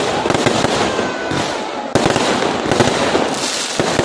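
Fireworks going off: a dense run of crackles and bangs, with a sharp bang about two seconds in.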